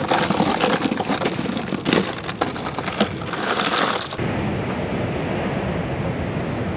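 Crushed ice crunching and rattling in a cooler as hands dig through it and lift out spiny lobsters. About four seconds in, this gives way abruptly to a steady rushing hiss.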